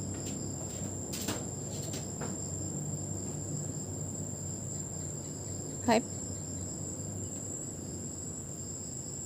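Insects chirring on one steady high-pitched note, with a single short call falling in pitch about six seconds in.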